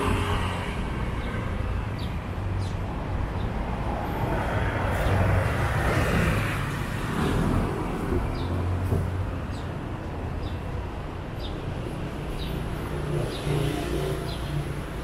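City street traffic: cars running past on the road beside the pavement, with one passing close and louder around the middle.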